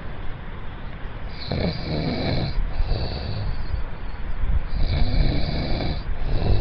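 A man snoring heavily: long, rattling snores. One comes about a second and a half in and another near five seconds, with a weaker one between.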